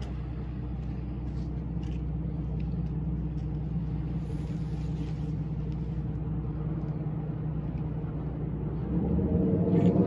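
Low, steady rumble of a passing Great Lakes freighter's engine and machinery. It grows louder about nine seconds in.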